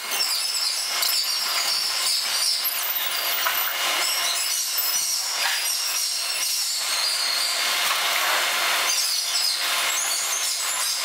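The ambient sound of train-cleaning work sped up six times: a steady, dense, high-pitched jumble of work noise with no low end.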